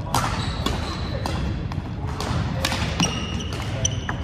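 Badminton rally: several sharp racket strikes on the shuttlecock, with short high squeaks of court shoes on the wooden floor near the end.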